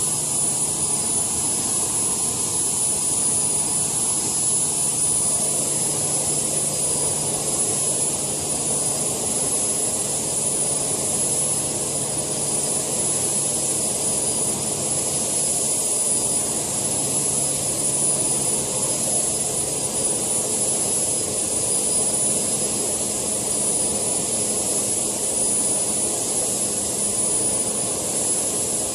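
Small JetCat PHT2 model-helicopter turbine running steadily, a constant high-pitched whine over a rushing noise.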